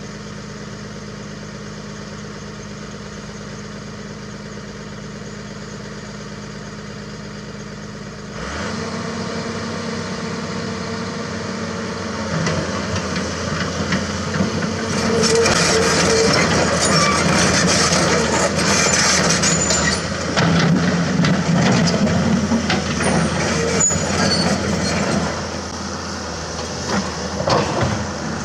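Komatsu PC200-6 excavator's diesel engine idling steadily, then running louder and faster from about 8 seconds in as the machine goes to work. Over the second half, hydraulic working noise and scattered knocks, with one sharp knock near the end.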